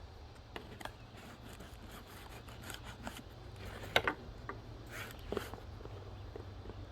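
Package being handled and opened: scattered rustles, scrapes and clicks, with a sharper knock about four seconds in, over a steady low hum.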